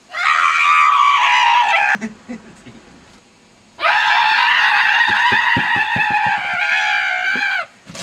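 A man screaming at full voice, twice. The first scream lasts about two seconds and slides down in pitch. After a short pause comes a longer scream of nearly four seconds, held at a steady pitch until it cuts off.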